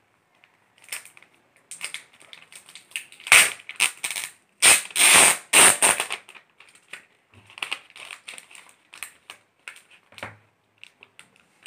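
Clear plastic protective film being peeled off a pen tablet and crinkled in the hand: irregular crackles, with the loudest rustling bursts between about three and six seconds in.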